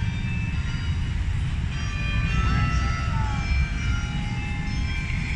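Open-air city square ambience: a steady low rumble with faint voices of people and scattered short high-pitched tones.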